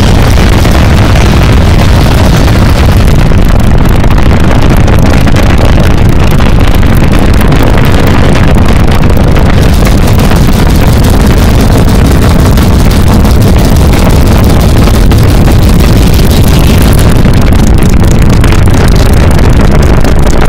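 Recorded Saturn V launch roar played over a theater sound system: a very loud, steady, deep rumble with no let-up.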